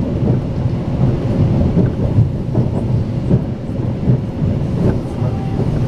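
Steady low rumble of a Strizh (Talgo) passenger train running on the line, heard from inside the carriage, with a faint steady hum above it.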